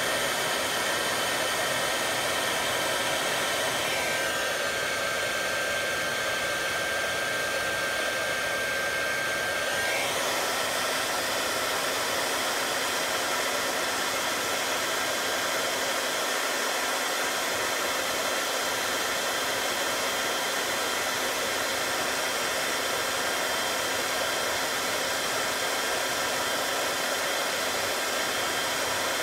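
Steady rushing noise of blowing air, even in level throughout, with a faint steady hum and thin whistling tones; some of the whistling tones drop out for a few seconds near the start.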